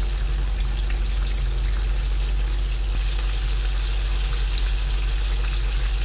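Cornstarch-coated Japanese tofu deep-frying in hot oil in a wok: a steady sizzle full of fine crackling pops, over a constant low hum.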